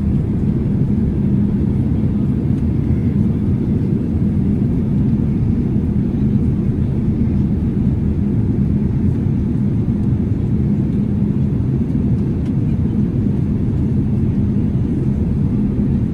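Steady low rumble of a Boeing 787-8 airliner's engines and airflow, even throughout with no distinct events.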